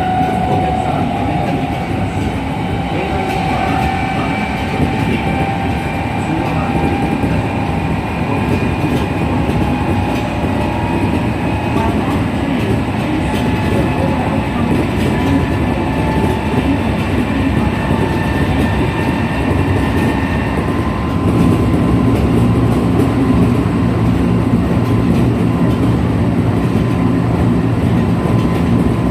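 Kintetsu 1233-series electric train heard from inside the car while running, with wheel and rail noise and a whine that rises slowly in pitch. From about three-quarters of the way in it gets louder, with a low steady hum. This trainset is known for an unusual running noise that a normal 1233-series car does not make.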